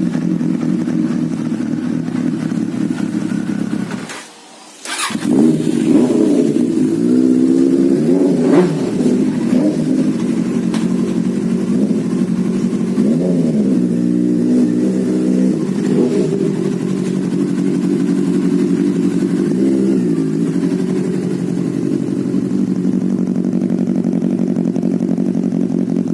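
Motorcycle engine running through its exhaust, idling steadily with several throttle blips that rise and fall in pitch. The sound drops away for about a second about four seconds in, then picks up again.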